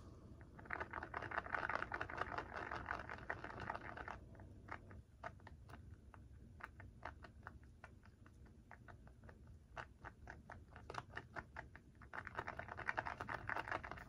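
A small stick scratching and tapping on a cardboard square while mixing epoxy: two spells of fast, dense scratching, one just after the start and one near the end, with scattered ticks between.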